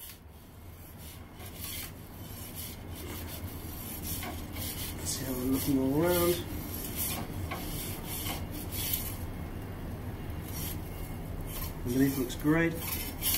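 Repeated scraping and rasping of a pizza peel working at the Ooni Koda 16 oven, over the steady low sound of its gas burner running.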